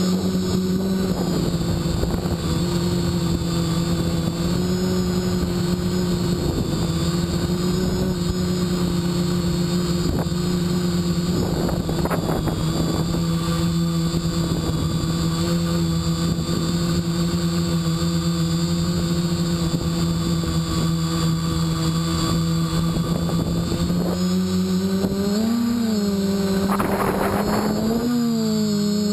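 BlueSkyRC Spider Quad quadcopter's electric motors and propellers humming steadily, heard through the GoPro mounted on the craft, with wind rushing over the microphone at moments. Near the end the pitch rises briefly twice.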